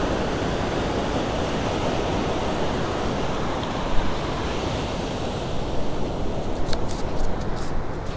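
Ocean surf washing in a steady rush, with one thump about four seconds in and a few sharp clicks and taps near the end.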